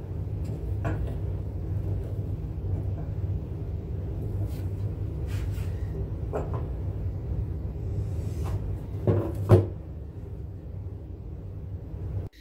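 Metal C-clamps and wood knocking on a wooden workbench as a glued scarf joint is clamped and adjusted: a scattered series of knocks and clunks, the loudest about nine and a half seconds in, over a steady low hum.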